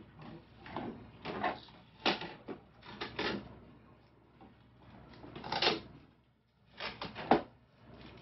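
Hard plastic parts of a LitterMaid automatic litter box knocking and clattering as the waste receptacle box is handled and fitted into place: a series of short knocks and scrapes, the sharpest about seven seconds in.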